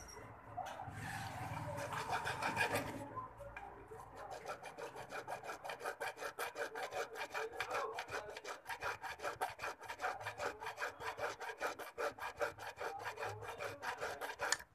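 Hand file rasping back and forth on a small jewellery piece braced against a wooden bench pin. The first few seconds are uneven rubbing, then quick even strokes, about five a second, that stop suddenly at the end.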